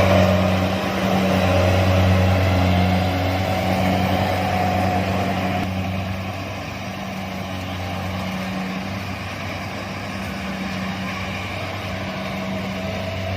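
Kubota DC-70 combine harvester's diesel engine running steadily under load while harvesting rice, a low hum over mechanical noise. It drops somewhat in level about six seconds in and swells again near the end.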